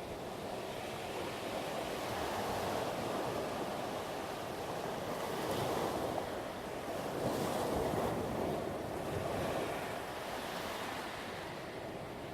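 Heavy surf breaking on a loose pebble beach: a steady wash that swells to its loudest about two-thirds of the way through, then eases off.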